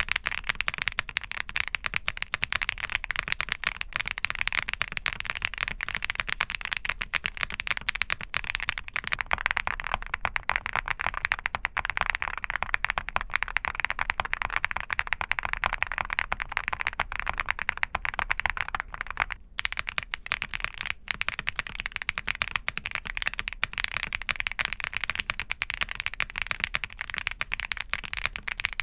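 Fast, continuous typing on a Crush80 mechanical keyboard with Kailh Cocoa linear switches: a dense clatter of keystrokes, broken by a brief pause about two-thirds of the way through.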